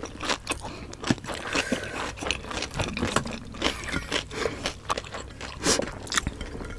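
Close-miked eating sounds: irregular wet mouth clicks and smacks from chewing fatty pork adobo, with fingers scraping food and rice on a plate.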